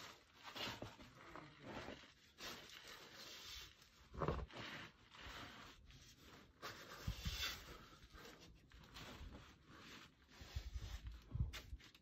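A climber's clothing and shoes scraping and rubbing on granite while wriggling through a tight squeeze chimney. The scuffs come irregularly, with a louder scrape about four seconds in and a few low bumps later on.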